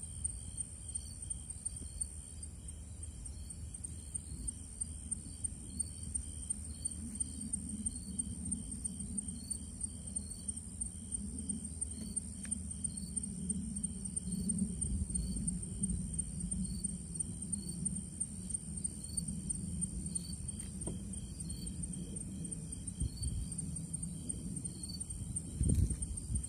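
Night insects: a steady, high-pitched trill with fainter chirps repeating about once a second, over a low rumble.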